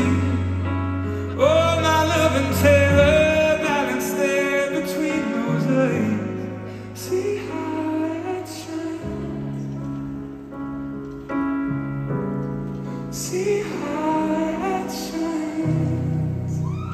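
Live band performing, with a male lead singer holding long sung notes over the band's sustained low chords, which change every few seconds.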